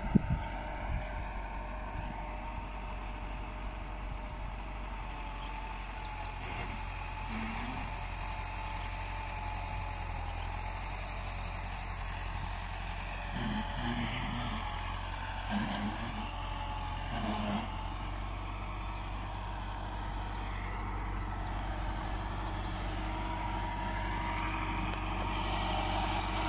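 Massey Ferguson 375 tractor's diesel engine running steadily under load as it pulls a laser land leveler through loose tilled soil. It grows louder near the end as the tractor comes closer.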